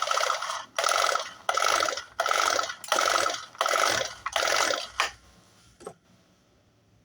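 Recoil pull-starter of a four-stroke grass cutter yanked about seven times in quick succession, the engine spinning over freely with no firing because the spark plug is out and gasoline has been dripped on the carbon-coated piston to loosen the carbon.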